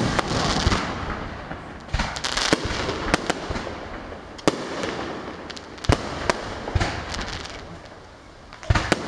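Aerial firework shells bursting in an irregular series of sharp bangs, about a dozen, with a hissing crackle of glitter stars between them and a quick cluster of loud bangs near the end.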